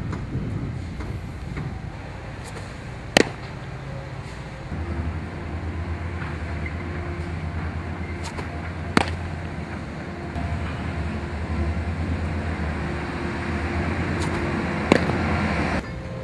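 Pitched baseballs smacking into a catcher's mitt: three sharp pops about six seconds apart, over outdoor background noise with a steady low hum.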